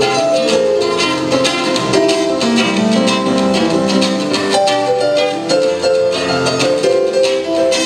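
Live acoustic guitar and electronic keyboard playing an instrumental passage together, the guitar strummed and plucked in a quick, dense rhythm.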